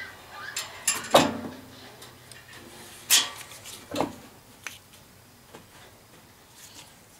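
Metal knocks and clanks as a furnace blower motor is handled and fitted into its sheet-metal blower housing: a handful of separate knocks, the loudest about a second in with a short ringing after it.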